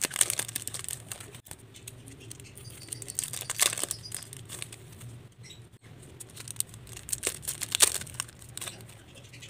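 Clear plastic cellophane wrapping crinkling and tearing as it is peeled by hand off packs of sticky notes, in irregular crackly bursts that are loudest about three and a half seconds in and again near eight seconds.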